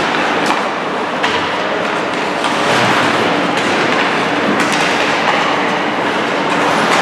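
Ice hockey play: a steady scraping rush of skate blades on the ice, with a few sharp clacks of sticks and puck over a low, steady arena hum.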